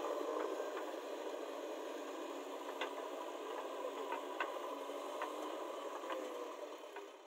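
JCB backhoe loader working in soil: a steady diesel machine hum with a few scattered faint clicks.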